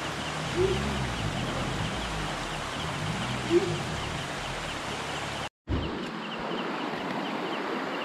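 Maruti Suzuki Omni van's engine running with an uneven, wavering pitch as the van sits stuck in a river crossing, over the rush of river water, with two short louder yelps in the first few seconds. After a sudden gap of silence about five and a half seconds in, only the flowing river is heard.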